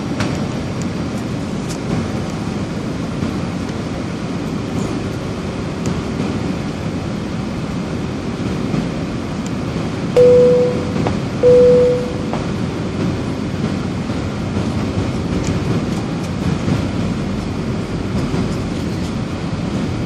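Steady in-cabin noise of an Airbus A320 on approach: engine and airflow rumble. About ten seconds in, two short cabin chimes sound at the same pitch, a little over a second apart.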